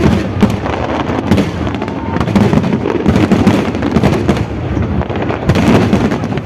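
Aerial fireworks display going off in a rapid, unbroken string of bangs and crackles.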